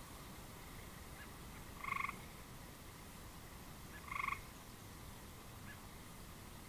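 A frog croaking twice: two short, pulsed croaks about two seconds apart.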